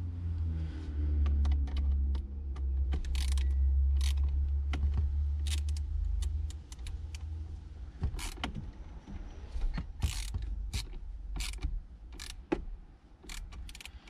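Scattered sharp clicks and small metallic rattles from small parts and a hand tool being handled at a car's steering wheel. A low rumble runs under them for about the first half.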